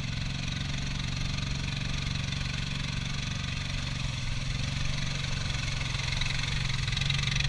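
Off-road vehicle engine running steadily at a fairly constant speed, getting a little louder near the end.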